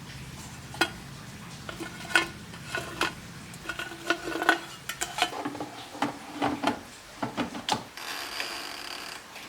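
Metal utensils clinking and knocking against pots and dishes during cooking, a dozen or so irregular strikes with short ringing tones, and a short rushing noise near the end.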